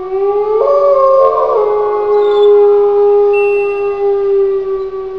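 Wolf howl sound effect: one long, steady howl with higher howling voices joining in about half a second in, slowly fading toward the end.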